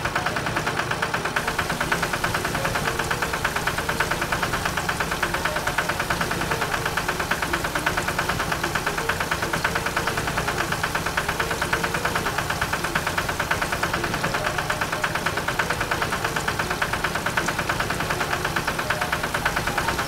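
Vehicle engine sound effect running steadily with a rapid, even pulse and no change in speed.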